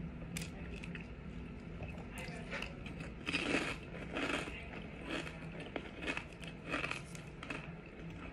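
Close-up chewing of crunchy tortilla chips, crisp crunches coming in irregular bursts, over a low steady hum.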